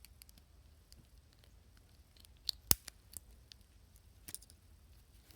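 Small clicks and scrapes of a screwdriver tip prying at a coin-cell battery held down by plastic tabs and a metal bracket inside a car key fob, with one sharper click a little under three seconds in.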